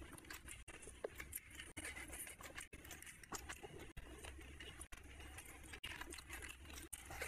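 Faint, close-miked eating sounds: wet chewing and smacking of a mouthful of curry and rice, with small crackly clicks as fingers scrape and gather food across a ceramic plate.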